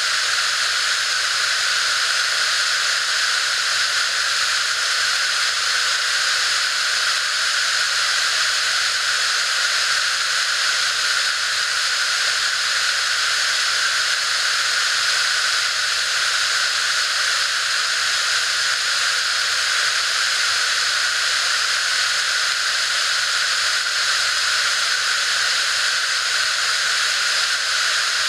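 Waterfall swollen with high water, pouring over rock ledges in a loud, steady hissing rush with little low rumble.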